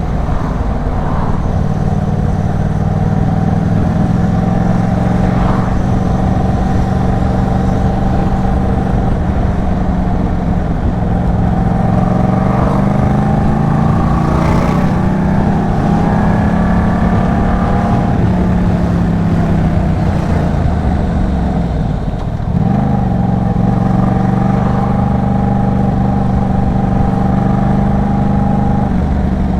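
Yamaha MT-07 parallel-twin motorcycle under way, its Arashi aftermarket exhaust running at a steady note. The pitch shifts up and down through the middle. A brief drop about three-quarters of the way through is followed by steady running again.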